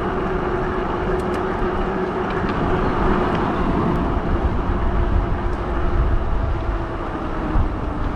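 Fat-tire electric bike underway: wind rushing over the microphone, with a steady hum.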